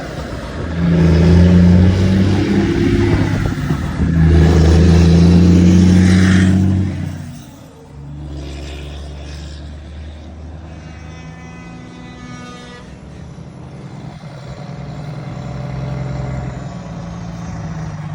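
Heavy diesel truck engine and exhaust running loud under load. About seven seconds in it drops to a quieter, steady running.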